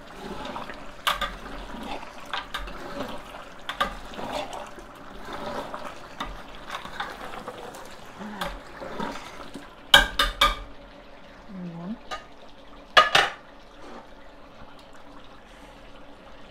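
A metal spoon stirring chunks of beef in a large metal pot, scraping and clinking against its sides over the bubbling of the oil and meat juices. Two loud bursts of metal clanks about ten and thirteen seconds in.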